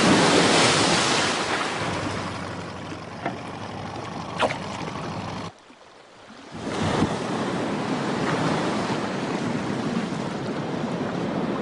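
Open-sea water and wind noise, the wash of waves. It is loudest in the first second or so, as a whale's tail flukes slip under, then eases off, drops out for about a second a little past the middle, and comes back as a steady wash.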